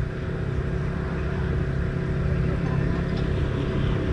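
A steady, even engine drone, low-pitched, growing slightly louder toward the end.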